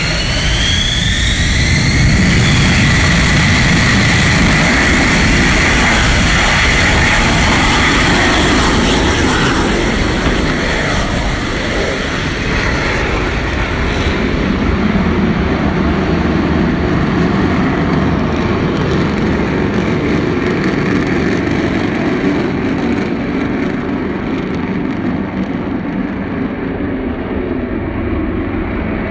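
Lockheed Martin F-35B's jet engine spooling up with a rising whine, then running at full power through its short take-off run off the carrier deck. As the jet climbs away the noise slowly fades and loses its high hiss.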